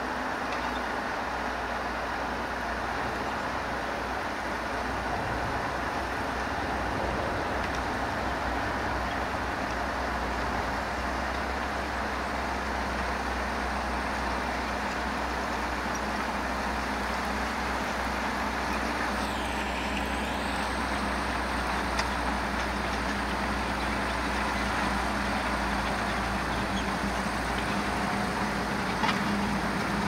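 JCB Fastrac 4220 tractor working under load as it pulls a reversible plough, a steady engine drone that grows a little louder near the end as the tractor comes closer.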